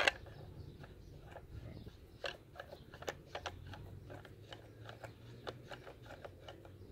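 Metal suppressor being screwed by hand onto the threaded muzzle of a Mendoza .22 rifle: irregular small clicks and scrapes of the threads turning, a few louder clicks at the start and a couple of seconds in.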